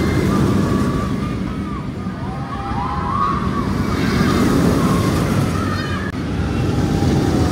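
Spinning roller coaster train running on the steel track close by: a deep rumble that swells twice as the cars pass. Riders scream over it in wavering high cries.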